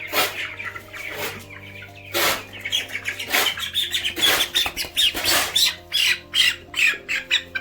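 Young broiler chickens squawking and cheeping in quick, repeated short calls as they are caught and handled for weighing, growing busier about halfway through.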